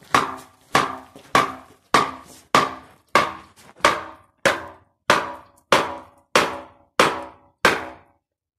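Sledgehammer striking the cast-iron end cover of a large electric motor again and again, about one and a half blows a second, each blow leaving a short metallic ring. The blows are knocking the end cover loose so it can be broken off the motor housing.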